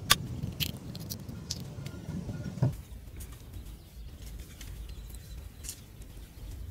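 Scattered small clicks and taps of hands handling food over an aluminium mixing bowl, over a low rumble that drops away about two and a half seconds in.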